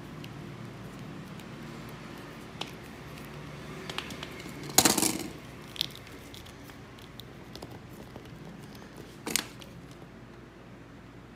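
Handling noise from hands working on a plastic action figure: scattered light clicks, a louder scraping crackle lasting about half a second about five seconds in, and another sharp click a little after nine seconds.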